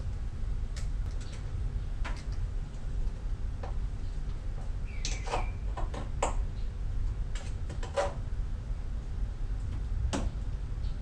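Hands wrapping thread seal tape onto a tankless water heater's threaded pipe fittings: scattered light clicks and short rustles, busiest from about five to eight seconds in, over a steady low rumble.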